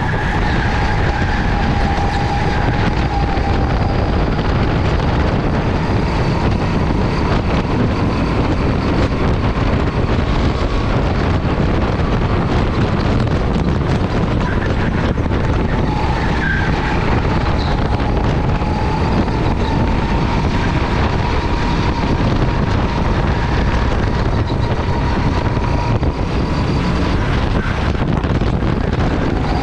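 Go-kart running at speed, heard onboard: a steady high engine note drifts gently up and down over a dense, continuous rush of wind and track noise.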